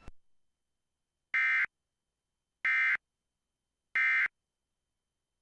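Emergency Alert System end-of-message data bursts: three identical short, raspy digital tone bursts about a second apart, the coded signal that closes the alert.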